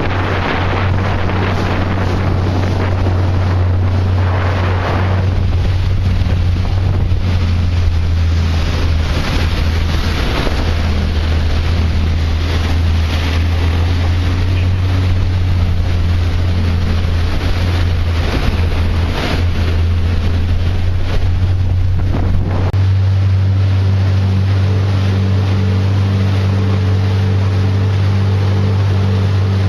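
A marine engine drones steadily under a constant hiss of rushing water and spray, with wind buffeting the microphone. The engine's note shifts and becomes steadier, with more overtones, about three-quarters of the way through.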